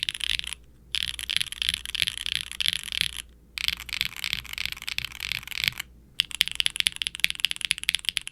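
Typing on a mechanical keyboard: an aluminium QwertyKeys neo65 with factory-lubed Kailh BCP linear switches in a carbon fibre plate and GMK double-shot ABS keycaps, giving a clacky, sharp and bright sound. Fast runs of keystrokes with three brief pauses, getting quicker and denser near the end.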